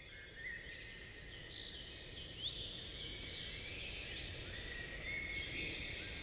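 Outdoor ambience of several birds chirping and whistling over a steady low background noise, rising in level over the first second.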